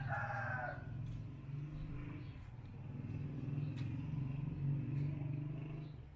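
A rooster's crow trails off in the first second, over a steady low rumble that stops just before the end.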